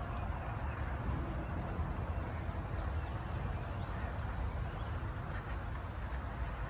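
Steady rush of a flowing forest stream under a low rumble, with a few faint, short bird chirps high above.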